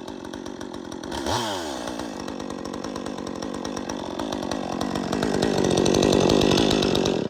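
Top-handle two-stroke chainsaw, the 201, running: a quick rev blip about a second in, then held at high revs, growing louder over the last couple of seconds before the sound stops abruptly at the end. It is being run to check that its repaired oil line now oils the chain.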